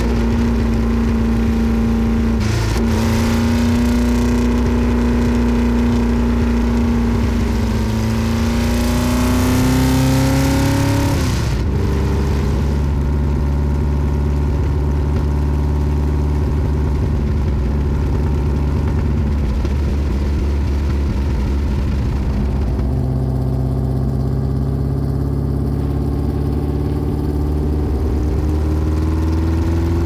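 Ford GT40's straight-piped V8 exhaust, loud, pulling at a steady engine speed while driving, its pitch climbing slowly before dropping suddenly about eleven seconds in. It holds a steady drone after that, then starts to climb sharply near the end as the engine revs up again.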